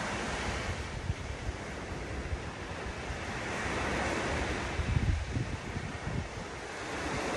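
Ocean surf washing steadily on the shore, with wind buffeting the microphone in uneven low gusts; the surf swells to its loudest about four to five seconds in.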